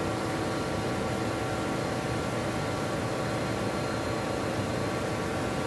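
Steady hum of running shipboard machinery, the air-conditioning compressor among it: an even hiss with several steady tones.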